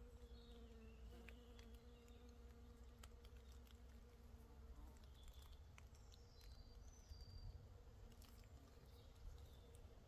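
Faint, steady buzz of a flying insect hovering near the microphone, with the lower part of its hum fading about halfway through. A few high bird chirps and small ticks sound around it.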